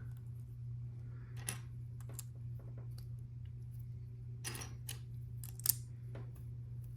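Plastic LEGO pieces being handled and sorted, giving scattered light clicks and short rattles, with one sharper click about two-thirds of the way through. A steady low hum runs underneath.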